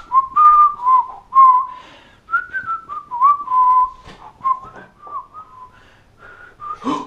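A person whistling a tune: one clear pitched line moving in short notes and small slides, with light clicks and knocks of handling underneath.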